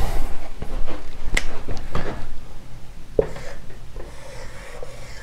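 Dry-erase marker writing on a whiteboard, a quiet scratchy rubbing, after a few sharp clicks and knocks in the first three seconds.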